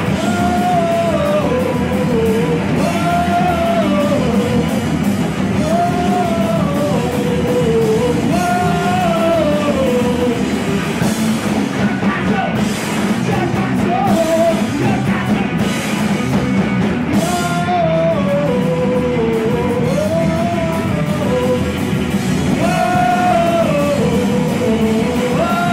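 Live rock band playing loud: electric guitars and bass with sung, partly shouted vocals, and a melodic phrase that rises and falls, repeating about every three seconds.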